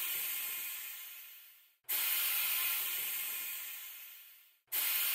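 Hiss of sand trickling through an hourglass, played as a loop: each pass starts abruptly, fades away over nearly three seconds, cuts out for an instant and starts again, about two seconds in and again near the end.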